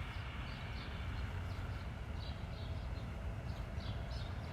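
Quiet street ambience: a low, steady rumble with faint short high ticks recurring about every half second.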